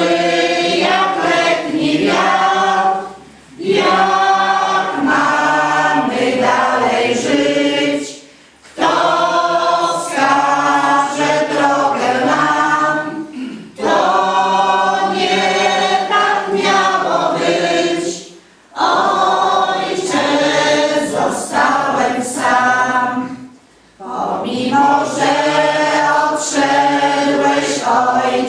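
Mixed choir singing a slow Polish hymn without accompaniment. It goes in phrases of about five seconds, with a short breath pause between each.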